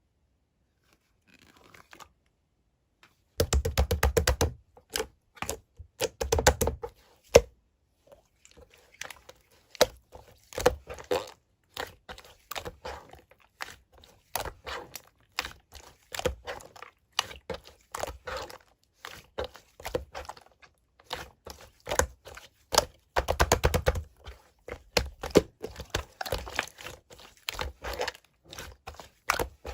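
Hands pressing, folding and stretching slime, making rapid wet clicks and pops as air pockets burst. The sound starts about three seconds in and is thickest in two spells of fast clicking.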